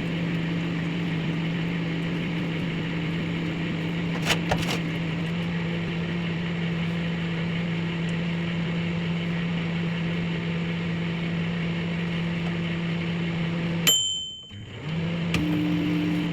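Microwave oven running with a steady hum, a sharp click about four seconds in. Near the end it gives a short high beep and the hum stops, then starts running again about a second later.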